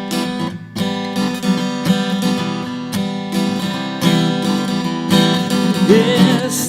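Acoustic guitar strumming chords in a steady rhythm, in an instrumental passage between sung lines of the song.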